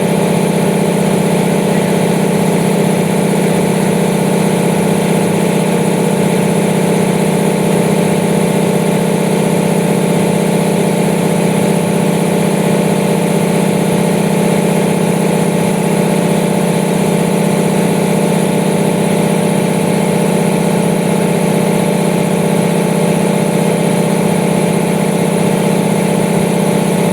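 15 HP base-mount industrial air compressor running steadily, a continuous low machine hum.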